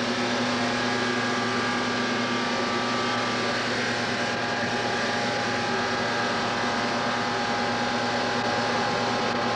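Ford Cosworth 1.5-litre twin-turbo V6 Formula One engine running on the test bed, holding a steady speed with an even, unbroken tone. Rogue trigger signals are still firing its fuel injectors at the wrong moment.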